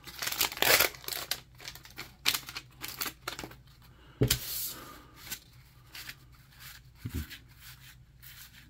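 Paper wax wrapper of a 1991 Donruss baseball card pack torn and crinkled in the first second, then a run of light clicks and taps as the cards are pulled out and handled, with a thump about four seconds in.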